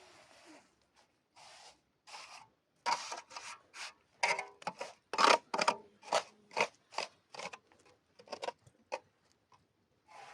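A series of short, irregular scraping or rasping strokes, faint at first, loudest and quickest in the middle, then thinning out.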